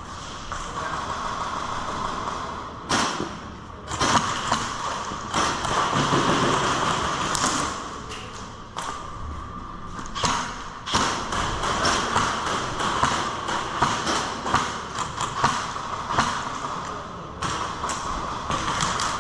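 Irregular thumps and taps over a steady hiss.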